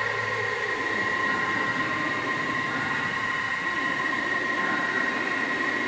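Soma Labs Lyra-8 analog drone synthesizer sounding a sustained, noisy drone through shimmer reverb: high steady tones are held over a churning, wavering mid-range noise. A low tone drops out about half a second in.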